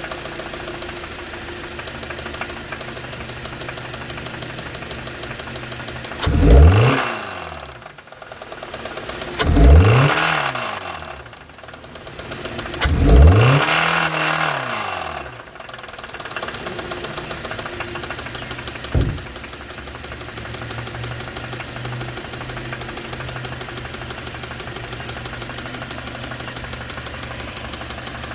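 Hyundai car engine with rod knock, idling with a regular knock. It is revved up and let fall back three times, then briefly blipped once. The knock is the sign of a worn connecting-rod bearing, and the engine is ruined.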